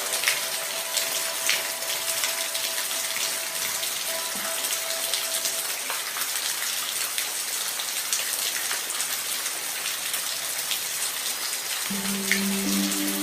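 Steady rain, a constant hiss with individual drops ticking through it. Soft held music tones sound under it at first, fade out about six seconds in, and return near the end.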